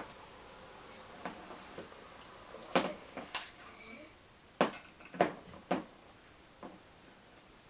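Spank Spoon aluminium flat pedal and its small metal pins clicking and knocking against a hard tabletop as they are handled: a scattered run of sharp knocks, the loudest about three and a half seconds in.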